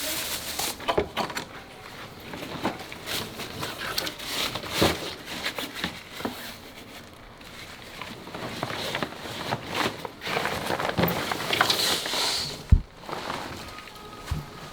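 Irregular clicks, knocks and rustling from hands-on work on an air conditioner, with one sharper knock near the end.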